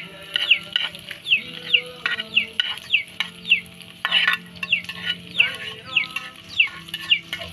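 Ingredients being stirred and sautéed in a pot of hot oil, the spoon knocking and scraping the pot through the sizzle. Over it, chickens give repeated high, falling peeps, about two to three a second.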